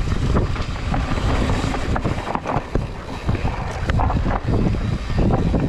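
Mountain bike descending a rough, rocky trail: wind buffeting the microphone and tyre rumble, with frequent sharp clacks and rattles as the bike hits rocks.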